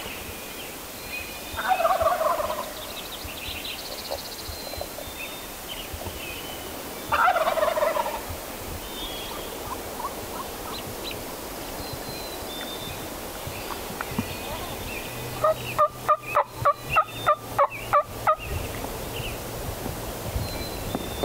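Wild turkey gobbler gobbling twice, about 2 s and 7 s in. Near the end comes a quick run of about eleven turkey yelps, roughly four a second.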